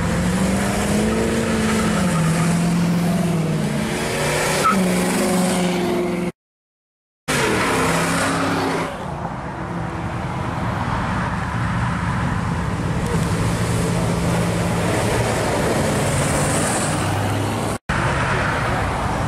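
Hot rod and classic muscle car engines accelerating past one after another, their pitch rising and falling through the revs and gear changes. The sound drops out for about a second some six seconds in, and again for an instant near the end.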